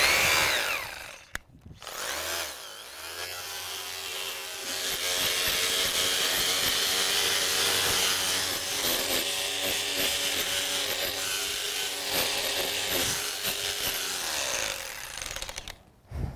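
Electric chipping gun with a chisel bit breaking deteriorated stone out of a stone block between saw-cut relief cuts. A brief burst at the start, then it runs steadily for about thirteen seconds and stops shortly before the end.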